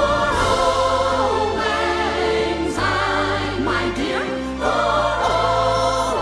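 Fireworks show soundtrack: a choir singing held notes over orchestral music with a steady bass line.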